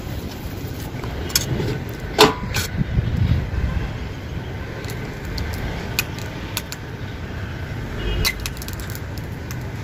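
Brass hand press being filled with a spoon and worked to squeeze out kurdai dough: scattered light metallic clicks and a brief squeak about two seconds in, over a steady low rumble.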